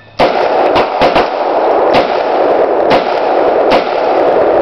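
Gunfire from a 9mm pistol and a neighbouring rifle: about seven sharp shots at uneven intervals, over a steady loud noise.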